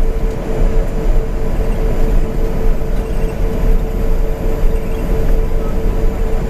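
Steady noise inside the cabin of an Airbus A380-800: a constant low rumble with one steady hum above it.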